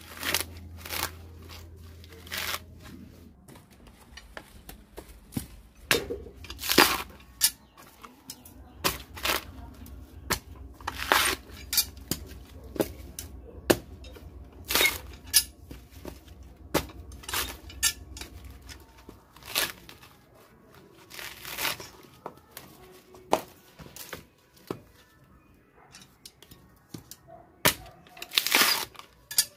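Dry coconut husk being torn and peeled apart by hand: irregular crackling tears and sharp snaps of the fibre.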